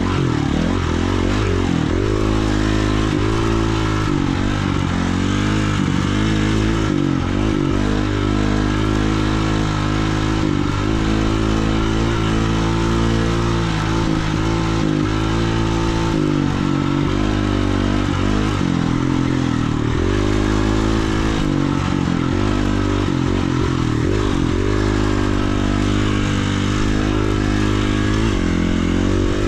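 Dirt bike engine running under load on a dirt trail, its pitch rising and falling again and again as the throttle is worked.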